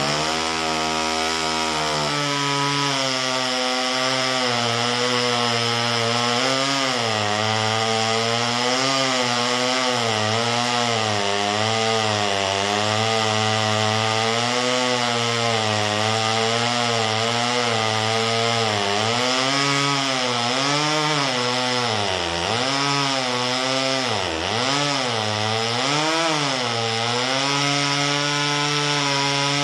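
A 34cc McCulloch Mac 110 two-stroke chainsaw running at full throttle while cutting through a piece of elm. The engine pitch wavers up and down as the chain loads in the wood, with a few deeper dips about two-thirds of the way through.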